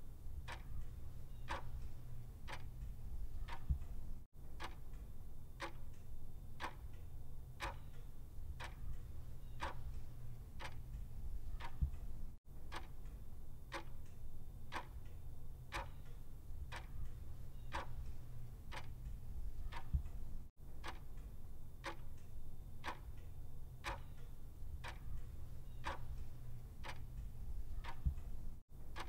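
Clock ticking steadily, about one tick a second, in step with a countdown timer. A low steady hum runs underneath, and the sound drops out briefly about every eight seconds.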